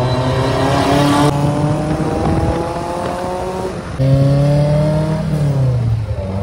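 Toyota MR2's 2-litre naturally aspirated four-cylinder engine accelerating through its twin exhaust, loud, with the revs climbing steadily. There is an abrupt change about a second in, and a louder stretch from about four seconds in whose pitch drops away near the end as the throttle eases off.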